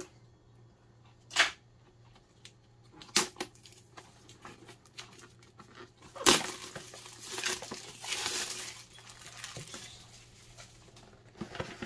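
Clear plastic shrink wrap being peeled and torn off a cardboard box, crinkling in a few sharp crackles, the loudest about six seconds in, then a longer stretch of rustling.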